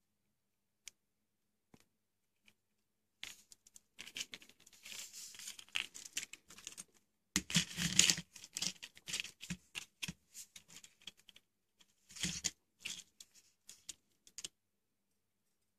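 Hands handling small parts and a metal helping-hands clamp on a wooden desk: irregular rustling, scraping and clicking, loudest in a burst near the middle and again a few seconds later.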